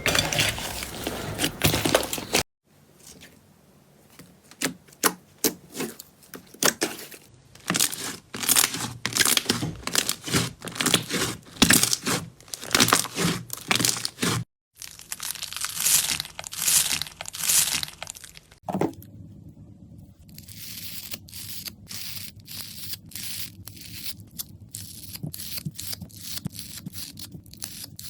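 Slime being squeezed and stretched close to the microphone, giving dense runs of sticky crackles and pops. The sound breaks off abruptly twice and starts again with a different texture.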